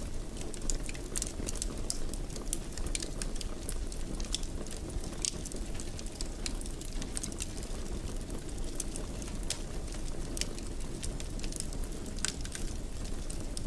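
Wood fire in a fireplace crackling: frequent small, irregular pops and snaps over a steady low rumble of the burning fire.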